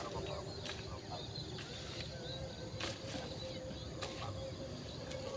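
Rural field ambience: insects and birds calling over a low rumble, with several sharp crackles of footsteps on dry, freshly cut grass.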